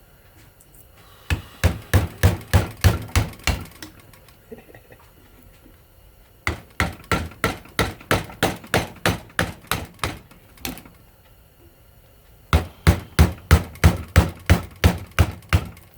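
Hammer blows in three quick runs, about four or five strikes a second, driving a screwdriver into the tightly wound, varnished copper windings of a ceiling fan motor to cut them free.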